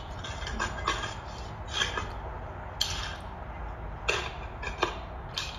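Box cutter slicing through packing tape on a cardboard box: a series of short scratchy rasps, with a few sharp clicks and taps on the cardboard.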